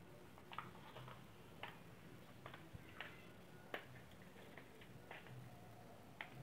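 About ten faint, irregular clicks and ticks of a screwdriver working against the plastic handle of an electric mosquito-swatter racket as it is taken apart.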